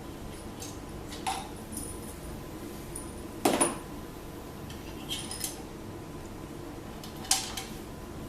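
Metal clinks of hand tools and loose metal parts being handled during car engine teardown work: about five separate sharp clinks, the loudest about halfway through, over a steady low hum.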